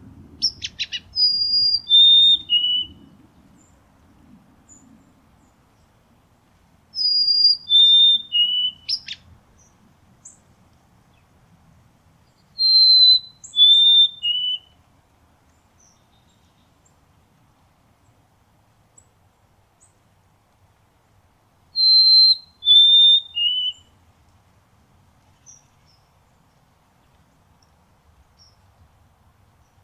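White-throated sparrow singing: four short phrases spaced several seconds apart, each made of three clear whistled notes that step down in pitch. A few quick sharp notes come at the start and right after the second phrase.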